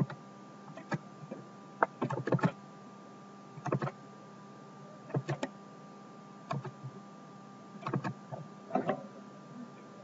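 Computer mouse and keyboard clicks, in short groups of two or three every second or so, over a faint steady electrical hum.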